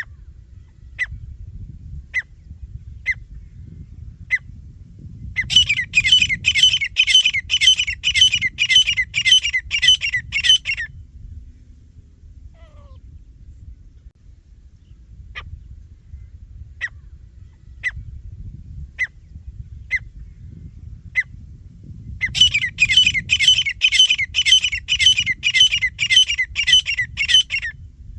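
Grey francolin (teetar) calling. Single short notes come about a second apart and build into a loud, harsh series of about two notes a second, lasting some five seconds. Then it falls back to single notes and builds into a second series near the end. A low background rumble runs underneath.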